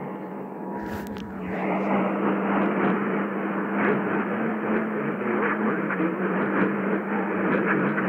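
AM radio reception: the faint two-tone EAS attention signal ends about a second and a half in, after a couple of clicks. Crackling static with a steady low hum then grows louder and carries on.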